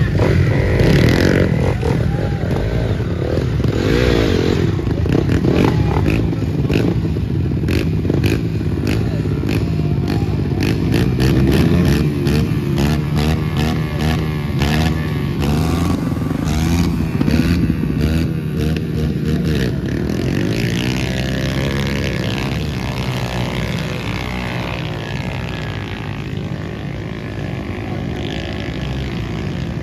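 Dirt bike engine revving hard, its pitch rising and falling again and again, with a rapid string of sharp cracks through the middle.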